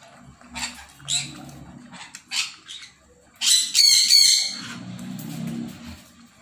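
Puppy lapping milk from a plastic bowl, a few short wet laps in the first three seconds. About halfway a loud, shrill squawking call lasts about a second and is the loudest sound.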